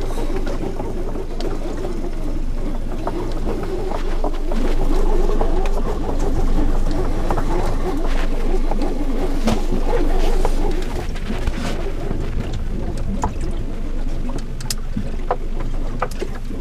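Water moving and slapping against the hull of a small anchored boat in a strong tide, with scattered small knocks and rattles from gear aboard.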